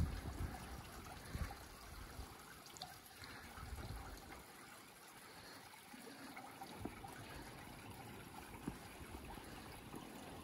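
Faint, steady trickle of water at a small stone dam's sluice, with a few light taps.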